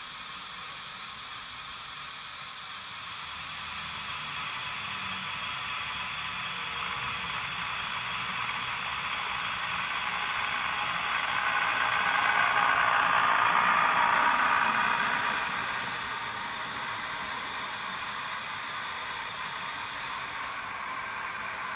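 Model train running on the layout's track, a steady whirring hiss of motor and wheels that swells as it passes closest about twelve to fifteen seconds in, then eases off.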